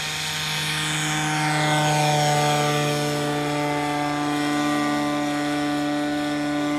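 Radio-controlled model Piper Cub's motor and propeller running at full power as the plane takes off and climbs: a steady droning tone, with a higher whine that slides down in pitch over the first few seconds.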